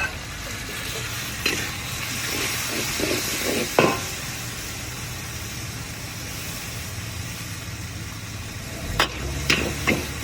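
Mee goreng sizzling in a hot wok while a metal spatula stirs and scrapes it, with sharp clanks of the spatula on the wok, several of them near the end.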